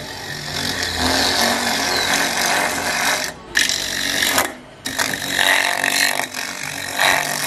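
Electric coconut scraper running, its spinning serrated head grinding the white flesh out of a coconut half in a steady, harsh rasp over the motor's hum. The grinding drops away briefly twice in the middle.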